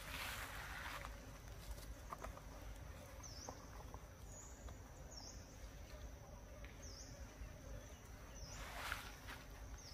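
Young macaques scuffling on dry leaf litter: faint rustling and small crackles, strongest at the start and again near the end. A steady high-pitched whine runs underneath, dipping briefly in pitch every second or two.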